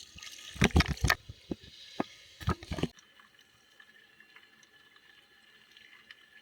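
Water splashing and sloshing around the camera, a quick run of sharp wet pops over the first three seconds. About three seconds in the sound suddenly drops to a faint, muffled hush with occasional faint ticks, as when the camera goes under the surface.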